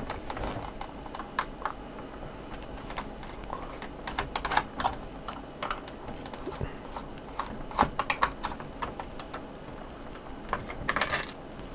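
A screwdriver turning a screw out of the plastic power-supply cover of an Elektronika 302-2M cassette recorder, with fingers handling the plastic: irregular small clicks and scrapes, bunched into short clusters.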